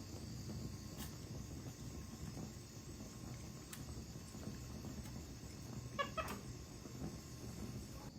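A black-capped capuchin monkey gives a short, pitched squeaky call about six seconds in, over a steady low background rumble with a few faint clicks.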